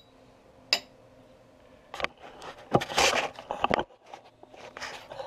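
Handling noise: a single light metallic clink under a second in, then about two seconds of rustling and scuffing, with a few faint clicks near the end.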